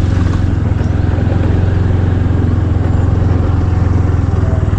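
Motorcycle engine running at a steady speed while riding, heard from on the bike as an even low hum.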